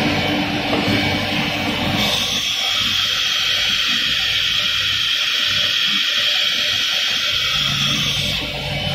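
ATC CNC router spindle running while it routes a wooden sheet, with the hiss of dust extraction and a steady low hum. A high, steady whine comes in about two seconds in and stops shortly before the end.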